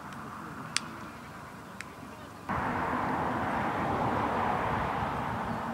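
Open-air ambience with two sharp clicks about a second apart, then a steady rushing noise that comes in abruptly about halfway through.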